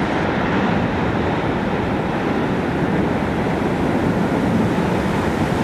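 Steady rushing roar of Mount Yasur's Strombolian eruption as an ash column rises from the crater, with no separate blasts or thuds standing out.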